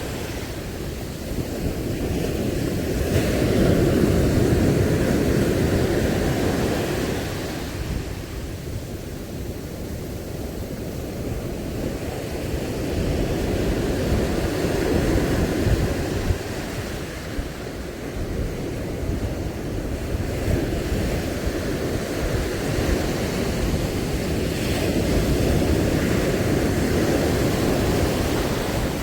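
Sea surf washing in, with wind rumbling on the microphone; the rushing swells and fades slowly several times.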